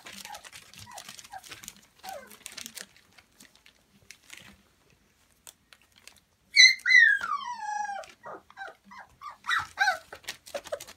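Young puppies whimpering and yelping. The loudest sound, about two-thirds of the way in, is one long whine that falls in pitch, followed by a run of short yips and whimpers. Earlier there are small squeaks over light scuffling and clicking of paws on plastic sheeting.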